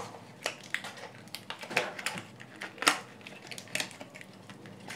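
Scattered light plastic clicks and taps as the cell pack of a Dell laptop battery is worked out of its plastic housing.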